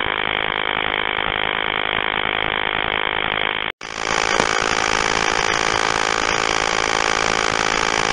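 Steady electronic buzz on a recorded telephone line, a dense stack of constant tones at an even level. It cuts out for an instant about halfway through and comes back brighter.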